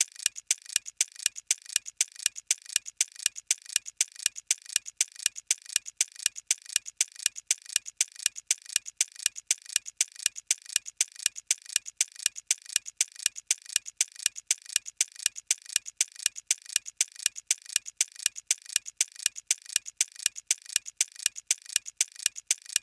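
Ticking-clock sound effect used as a quiz countdown timer: a steady, even tick at about two a second.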